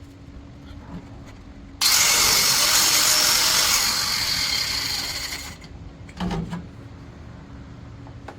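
A power tool runs loudly for about four seconds, starting abruptly and tailing off, during exhaust pipe work. A short knock follows.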